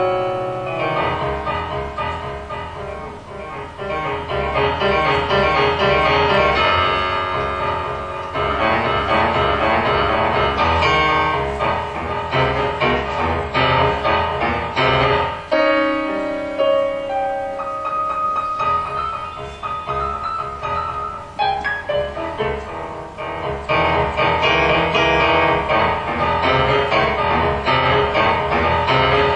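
Instrumental film score led by piano, a busy run of notes that eases off somewhat in the middle and grows fuller again near the end.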